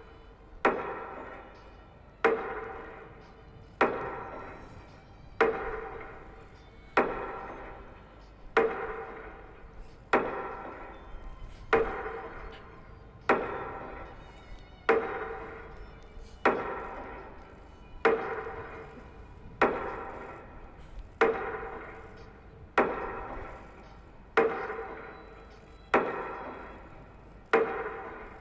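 A metronome beating slowly and evenly, one stroke about every 1.6 seconds. Each stroke is a sharp knock followed by a ringing tone that fades before the next. It is the metronome that marks a minute of silence.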